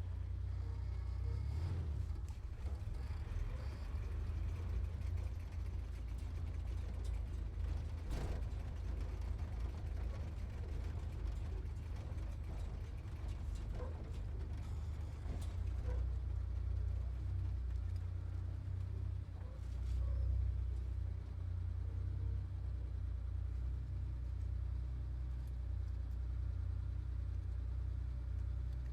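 Sports car driving, its engine and road noise making a steady low rumble, with a few faint clicks and knocks over it.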